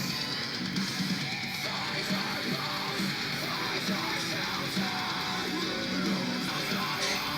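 Guitar music with strummed guitar, playing steadily.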